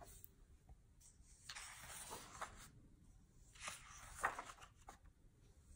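Faint rustling and handling of a hardcover picture book as its cover is opened and its pages are turned, in a few soft swishes with a short tap about four seconds in.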